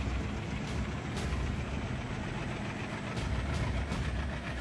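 Toy model WDG3A diesel locomotive running along plastic track: a steady hum from the toy's motor and wheels, with sharp clicks now and then as the wheels cross the track joints.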